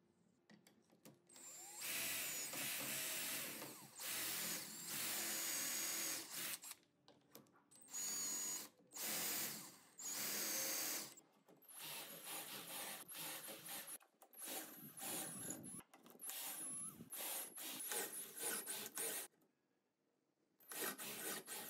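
Cordless drill boring dowel holes into plywood through a metal doweling jig, running in repeated bursts of a few seconds with short pauses between holes; the later bursts are shorter and choppier.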